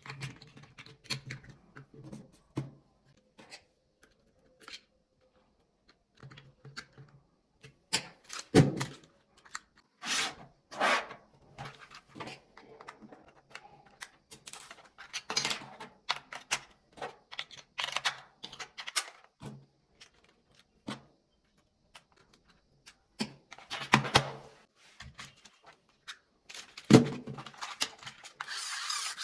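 Hands handling a plastic toy RC car and its packaging: scattered clicks, taps and light knocks with short rustles, a sharper knock about 27 seconds in.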